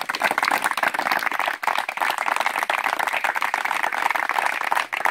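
Applause from a small audience: many hands clapping steadily.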